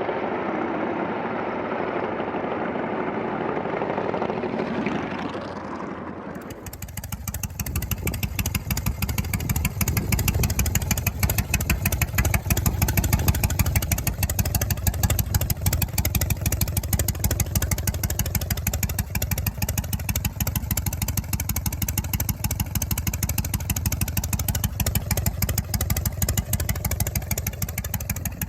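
Harley-Davidson Shovelhead air-cooled V-twin engine running, heard through its muffler with a newly fitted inner silencer: a deep, rapid pulsing exhaust note that holds steady. It comes in about six seconds in, after a brighter sound without the low thump.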